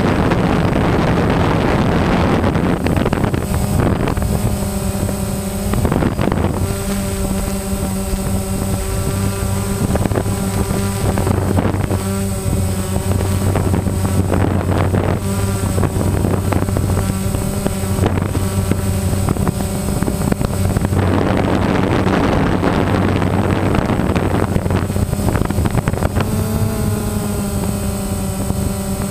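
DJI Phantom quadcopter's motors and propellers humming steadily as it hovers, picked up by its own onboard camera. Gusts of wind noise buffet the microphone at the start and again about three-quarters of the way through.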